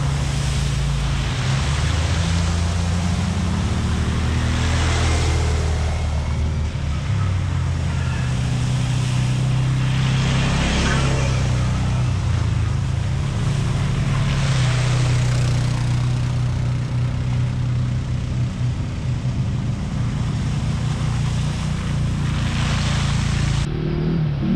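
Side-by-side UTV engine running while driving on a trail, its note rising and falling with the throttle, with swells of rushing noise every few seconds. The sound changes abruptly near the end.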